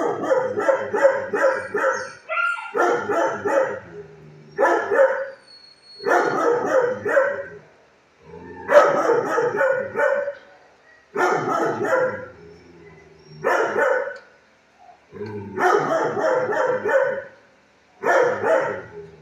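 Shelter dogs barking in quick runs of several barks at a time, a run about every two seconds.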